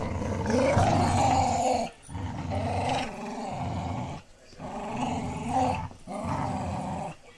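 Dogs play-growling during a tug-of-war over a toy: a pit bull terrier and a puppy. There are four long, low growls, each with a brief pause between.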